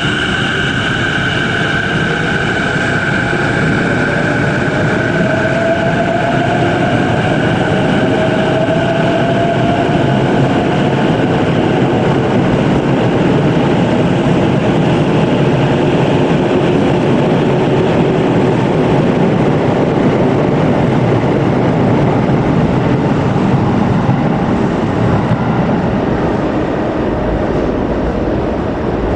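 Sotetsu electric train pulling out of an underground station platform: the steady rumble of the cars rolling past, with the motor whine rising in pitch over several seconds as it picks up speed.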